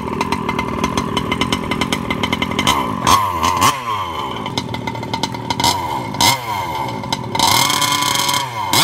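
Losi MTXL RC monster truck's electric motor whining as the throttle is repeatedly opened and let off, its pitch sliding up and down while it strains on a tow rope against a 50cc ATV. About three-quarters of the way through, a burst of hiss suggests the tyres spinning on gravel.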